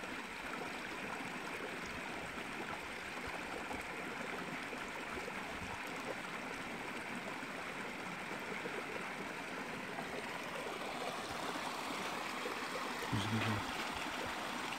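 Shallow stream water running steadily over stones.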